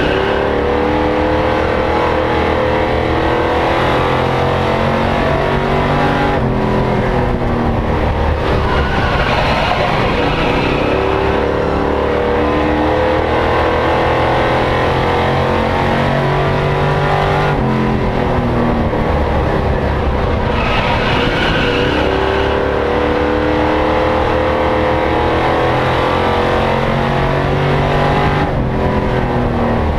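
Stock-car race truck's engine heard from inside the cockpit at racing speed, its note repeatedly climbing and then falling back, with a dip roughly every eleven seconds as it goes round the oval.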